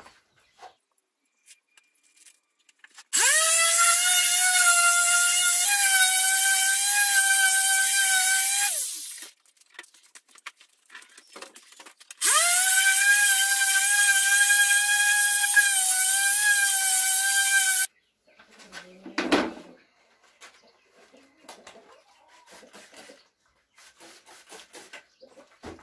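Handheld electric power tool running twice for about six seconds each. Each time the motor spins up with a quick rising whine, then holds a steady high whine over a hiss. A single short knock follows.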